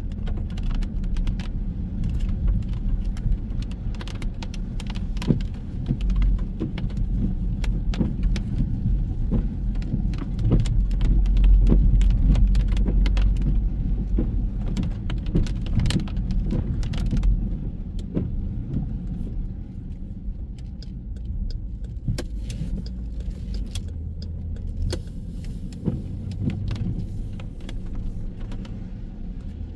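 Steady low rumble of road traffic, with many small sharp clicks and taps scattered throughout. The rumble swells for a few seconds around the middle and eases off later.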